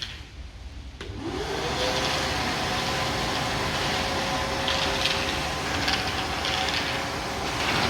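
Nilfisk Multi II wet and dry vacuum cleaner switched on about a second in. Its motor whines up in pitch as it comes up to speed, then runs steadily with a loud rush of air.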